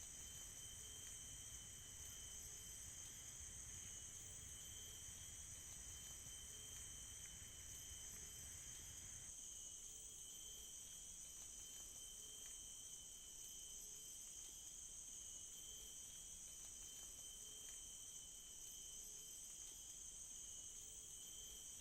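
Faint, steady insect chorus: a continuous high trilling with a second, lower trill beneath it. Faint short low notes repeat about once a second, and a low rumble stops about nine seconds in.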